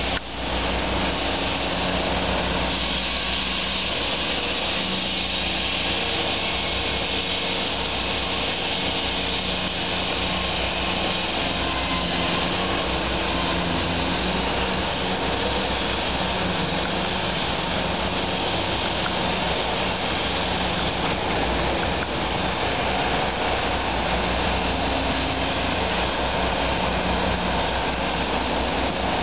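Steady din of street traffic mixed with the running engines of road-construction machinery, a continuous mechanical drone with a few steady low hums under it.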